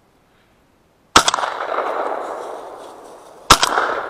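Two shotgun shots a little over two seconds apart, the first about a second in, each followed by a long rolling echo that slowly dies away.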